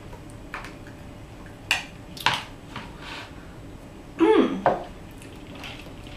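Two sharp clinks of tableware: a bowl and fork set down on the table about two seconds in. Near the end, a brief throat sound from the eater with a sliding pitch, and a few faint mouth or cutlery ticks between.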